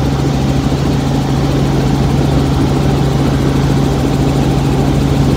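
Helicopter turbine and rotor noise heard from inside the cabin in flight: a steady, loud drone with a fast rotor beat underneath.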